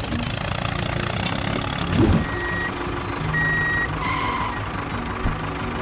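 Dubbed sound effect of a tractor diesel engine running steadily. A thump comes about two seconds in, followed by a couple of high electronic reversing beeps about a second apart.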